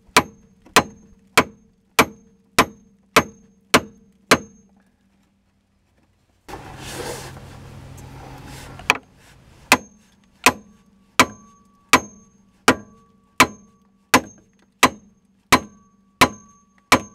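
Hammer blows on an old steel jack handle held against the nut of a bolt seized in a track-bar bushing's metal sleeve, driving at it with a sharp ringing metal strike about every two-thirds of a second. The strikes break off about four seconds in and, after a short stretch of noise, start again at the same pace about nine seconds in.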